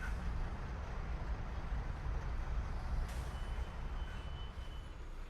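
Steady low rumble of a moving bus, engine and road noise, with a faint high whine about midway.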